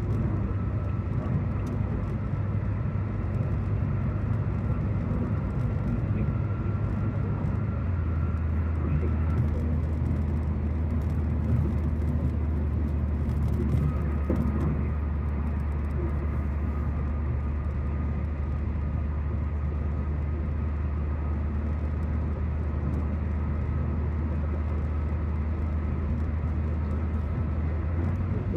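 Steady road noise of a car cruising at freeway speed, heard inside the cabin: a low drone from engine and tyres with a faint thin whine above it. The drone settles slightly lower about a third of the way through.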